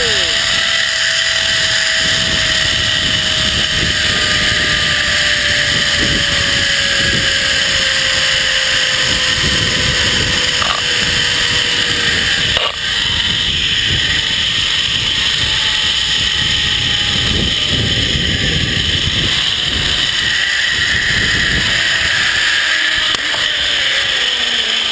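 Zipline trolley pulleys running along the steel cable, with a whine that slowly falls in pitch, under heavy wind rushing and buffeting the microphone.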